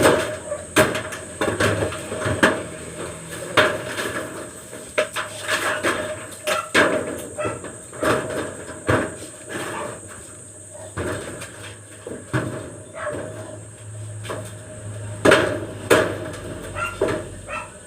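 Hand carpentry work: irregular hammer blows and knocks on wood, sometimes several in quick succession, with pauses between.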